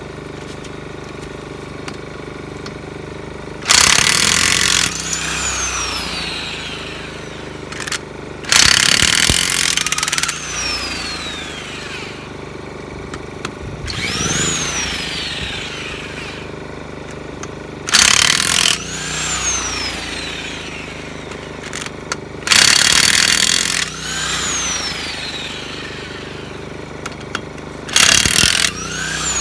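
Porter Cable 1/2-inch corded electric impact wrench hammering on truck wheel lug nuts in five bursts of one to two seconds, its motor winding down with a falling whine after each trigger release. An inverter generator runs steadily underneath.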